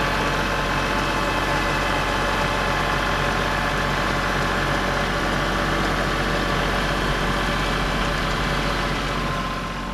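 Kubota tractor's diesel engine running steadily at a constant speed while it works the creek bank with its loader and backhoe.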